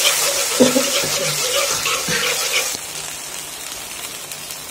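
Hot sauce and onions in a wok sizzling and hissing after water has been added, while a steel ladle stirs it with a couple of light knocks against the pan. The hiss drops away abruptly about three seconds in.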